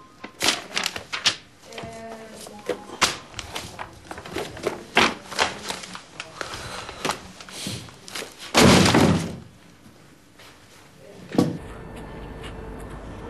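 Hands handling a plastic folder and papers: a quick run of clicks, knocks and rustling, then a loud thump about eight and a half seconds in and one more knock a few seconds later.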